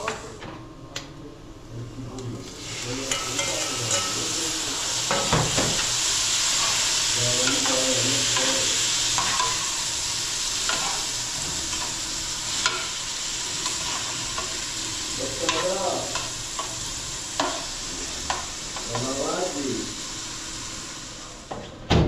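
Chopped fresh tomatoes sizzling in a frying pan over a gas flame while being stirred with a spoon. The sizzle sets in about two and a half seconds in and holds steady, with a few sharp knocks of the spoon against the pan.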